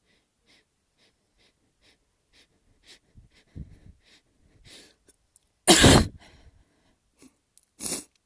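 A person sneezing: a run of short, quick breaths builds up, then one loud, wet sneeze about six seconds in, followed by a shorter sharp burst near the end.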